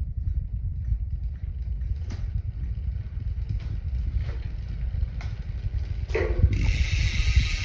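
Bicycle rear wheel spinning with a low rumble and a few faint clicks; about six and a half seconds in, the Hope Pro 4 rear hub's freehub sets up a loud, steady, high-pitched buzz as the wheel coasts freely.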